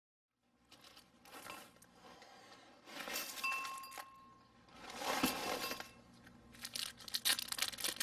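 Paper rustling and tearing in several short bursts as an envelope is torn open and a sheet is pulled out and unfolded.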